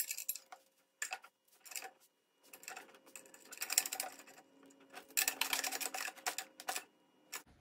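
Small metal clicks and clinks as nuts, washers and carriage bolts go onto a steel tine plate and are tightened down. The clicks come in quick runs, densest in the middle and toward the end.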